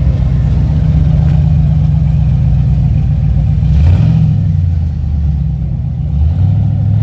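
Car engine rumbling low, its pitch rising and falling a couple of times as it is revved lightly.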